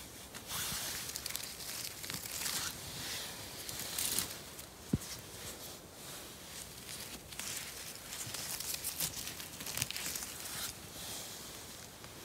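Footsteps and rustling through moss, dry leaves and twigs on a forest floor, in irregular swishes, with one sharp click about five seconds in.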